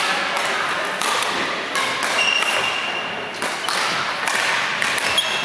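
Badminton hall sounds: scattered thuds and taps of rackets striking shuttlecocks on the courts, with a few short squeaks of shoes on the wooden floor.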